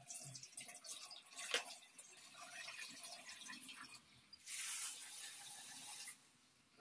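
Salt poured from a container onto chicken and spices in a steel bowl: a granular hiss that grows louder and steadier about four and a half seconds in, then stops about a second and a half later.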